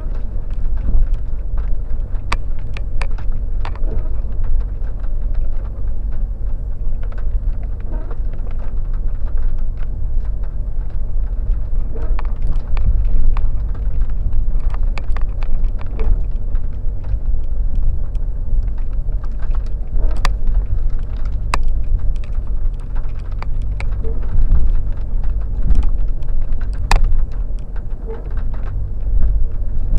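Off-road car driving slowly over a rough track: a steady low engine and drivetrain rumble with frequent irregular knocks and rattles from the bumpy ground.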